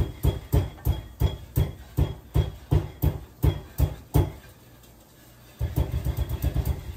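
Peppercorns being pounded into cracked pepper: rhythmic heavy knocks, about three a second, pausing for about a second past the middle, then coming faster.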